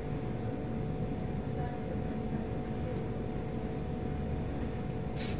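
Steady low rumble and hum of room noise, with a faint steady tone over it and a short click near the end.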